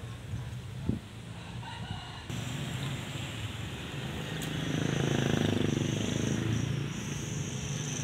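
A single long animal call, about two seconds long, loudest in the middle of the stretch. A short knock comes about a second in.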